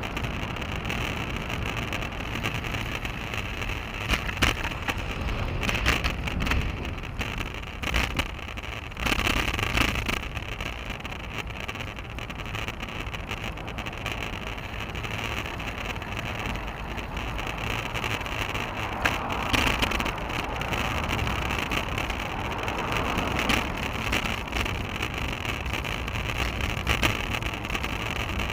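Riding noise from a bicycle-mounted action camera on a moving road bike: a steady rumble of wind and road vibration, with a few sharp knocks as the bike goes over bumps.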